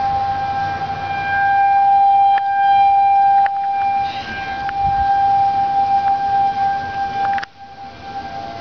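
Outdoor tornado warning siren sounding one steady, held tone, loud and unbroken, with a sudden drop in loudness near the end.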